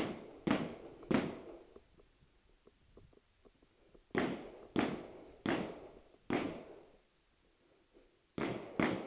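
Distant gunshots echoing across a shooting range, fired in quick strings about half a second apart: three at the start, four in the middle, two near the end.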